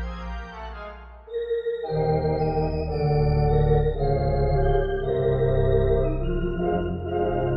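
Sampled Barton theatre pipe organ played through Grand Orgue software, holding sustained chords under a melody line. About two seconds in, the bass and fuller chords enter and it gets louder.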